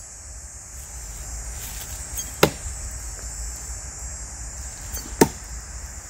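Two Smith & Wesson throwing knives striking and sticking into a pine tree trunk: two sharp thunks nearly three seconds apart.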